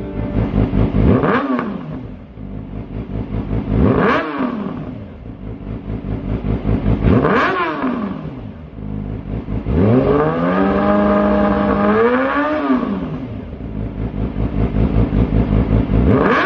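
Yamaha YZF-R6 (2008–14) inline-four engine revved through a Lextek YP4 full exhaust system. Three quick throttle blips about three seconds apart each climb sharply and drop back to idle. Then a rev is held high for a couple of seconds, and one more blip comes near the end.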